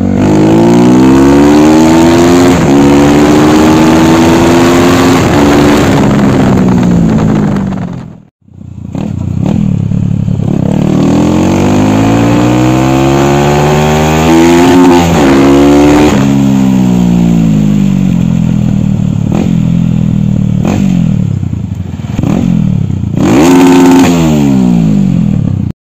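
Bajaj Rouser NS 200's single-cylinder engine revving hard through the gears. Its pitch climbs and drops at each shift, with a short break about eight seconds in and a quick rev near the end. The bike runs an aftermarket exhaust, a main jet enlarged to 125 and a BMB air filter.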